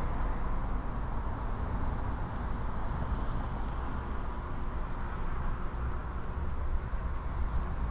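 Outdoor street ambience: a steady low rumble of road traffic, with a car driving past on the street.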